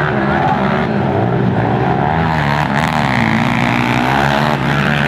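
Several quad ATV engines revving together as they race, their pitches rising and falling and overlapping.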